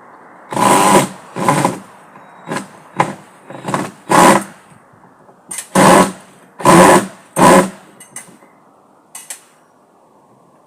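Power drill driving screws in short trigger bursts, about nine spurts of a quarter to half a second each with pauses between.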